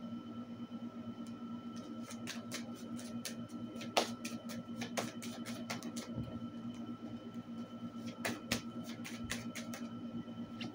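A deck of zodiac cards being shuffled by hand: irregular soft clicks and flicks as the cards slide and tap against each other, over a steady low hum.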